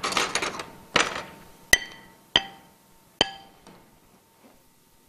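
Kitchenware handled on a ceramic plate. A couple of short scraping sounds are followed by three sharp, ringing clinks of a small utensil or mould striking the plate, each less than a second apart.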